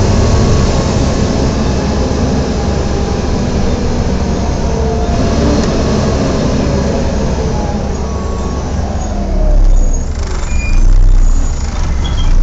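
Volvo B7TL double-decker bus heard from inside: the loud, steady 'hoover' roar of its engine cooling fan over the running engine. In the last few seconds the roar eases and the pitches fall as the bus slows, with two heavy low thuds near the end.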